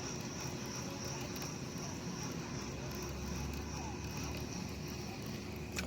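Steady outdoor background of a continuous high, thin insect drone over a low rumble, with a single sharp click near the end.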